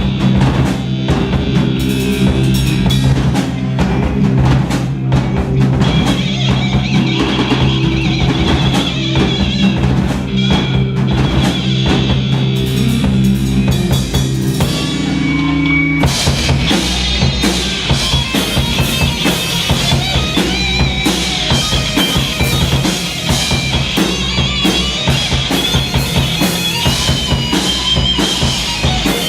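Live stoner/psychedelic rock band playing an instrumental passage: full drum kit with kick and snare, under bass and guitar. About sixteen seconds in, the music switches abruptly to a new section with busier high guitar lines.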